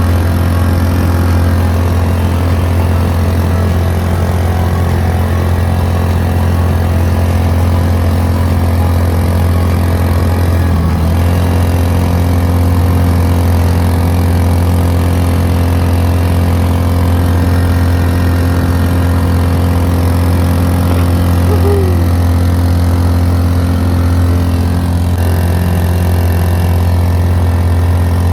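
A motor running steadily with an unchanging low hum, with no change in speed.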